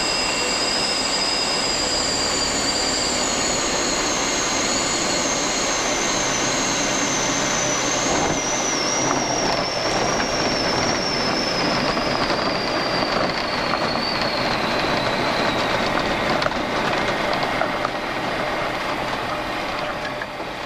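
Bristell XL8 light aircraft's cockpit noise while landing. The engine and propeller run steadily, with a high whine that glides slowly lower as the power comes back. From about eight seconds in, a rough rumble and rattle join it as the wheels roll along the runway.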